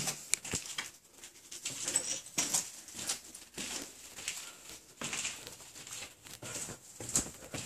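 Irregular footsteps and scuffs on stone stairs: short uneven knocks and scrapes, a fraction of a second to a second apart.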